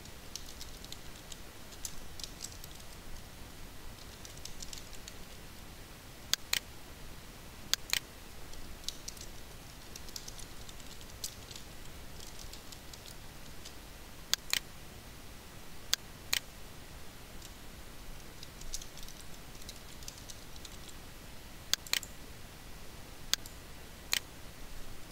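Typing on a computer keyboard in short runs of soft key clicks, with several sharper single clicks scattered between them, typical of a mouse button.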